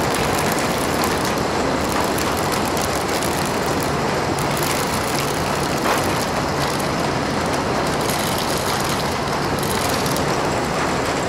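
Small electric gear motor driving a cardboard conveyor loader, running steadily with a dense clatter of buckwheat grains.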